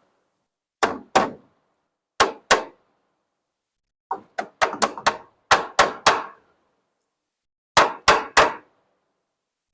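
A hammer striking wood framing: about fifteen sharp blows in short bursts of two or three, with a quicker run of about eight in the middle, and pauses between bursts.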